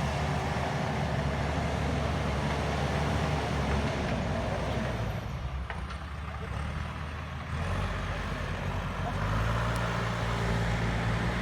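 JCB backhoe loader's diesel engine running steadily, easing off slightly around the middle, then picking up and running louder from about two-thirds of the way in.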